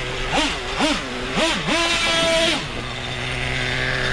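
Traxxas Revo 3.3's nitro two-stroke engine blipped three times in quick succession, each time rising and falling in pitch. It is then held at higher revs for about a second before dropping back to a steady idle.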